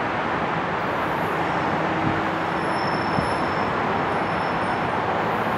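NJ Transit electric locomotive and multilevel double-deck coaches rolling slowly along the track, a steady rumble of the train with faint high whines over it. Two light clicks come about two and three seconds in.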